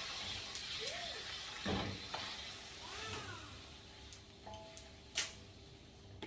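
Garlic sizzling in hot oil in a frying pan, the hiss slowly dying down. A couple of utensil knocks on the pan, the sharpest about five seconds in.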